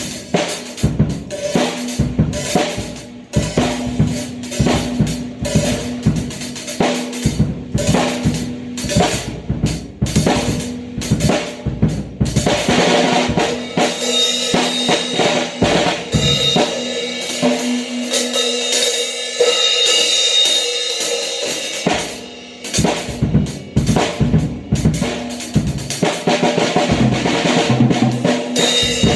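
Acoustic drum kit played hard and busily: fast kick, snare and tom hits. In the middle the low drum hits drop away for several seconds under a steady cymbal wash, then the full beat comes back.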